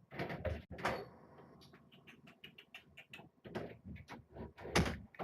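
Handling noise as a person comes in to the kittens: rustling bursts with a quick run of small clicks and knocks in the middle, and a louder rustle near the end.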